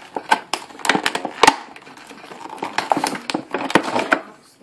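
Stiff clear plastic packaging crinkling and crackling as it is handled and pulled open, a dense run of irregular sharp crackles and clicks that dies away just before the end.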